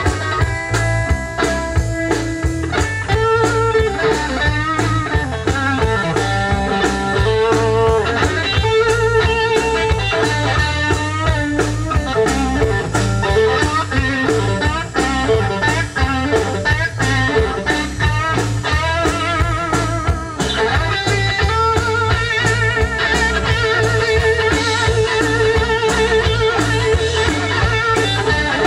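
Blues instrumental break: a guitar plays a lead line with wavering, bent notes over a steady bass and drum groove.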